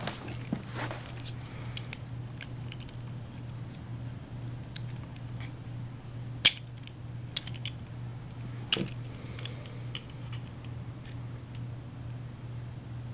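Scattered small metallic clicks and clacks of a deadbolt lock being handled and worked, two of them sharper about six and a half and nine seconds in, over a steady low hum.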